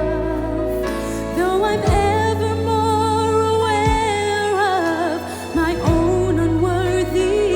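A gospel song: a female soloist singing a slow melody with vibrato over sustained bass and keyboard chords.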